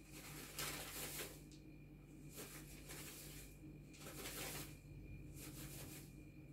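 Faint rustling of a paper bag and dried chamomile flowers as they are shaken out into a bowl on a small scale, coming in several short spells.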